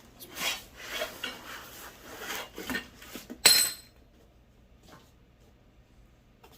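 Rummaging through a box of metal suspension hardware and bolts, with scraping and rustling, then one loud metallic clink with a short ring about three and a half seconds in.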